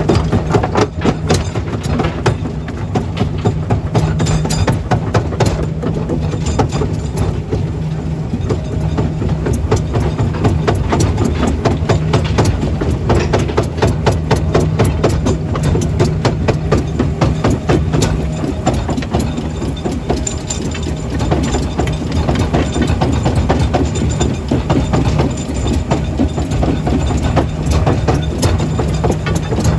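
Heavy diesel machinery running steadily at a stone-crushing operation, with a constant stream of sharp knocks and clatter of rock.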